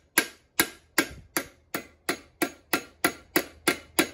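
Hammer tapping a roll pin into the shift lever shaft of a Tremec TR6060 manual transmission: sharp metal taps at about three a second, each with a short ring.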